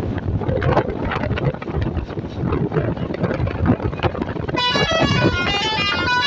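A loud, noisy jumble with voices for the first four and a half seconds, then a multi-tone 'telolet basuri' bus horn starts playing a quick melody of high stepping notes.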